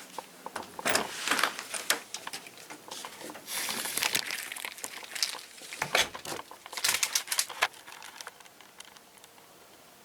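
Handling noise: irregular crinkling and rustling with light clicks and knocks, stopping about eight seconds in.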